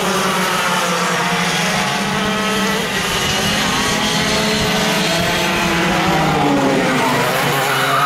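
Several racing kart engines buzzing around the track, their pitch rising and falling as the karts accelerate and slow for the corners.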